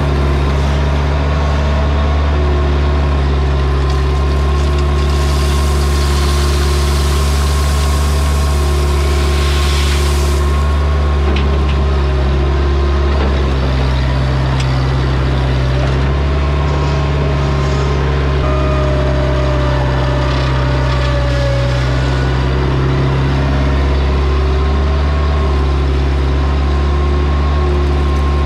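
Bobcat 843 skid steer loader's engine running steadily under work, with higher tones shifting in pitch above it. A loud rushing hiss rises from about five seconds in and stops at about ten.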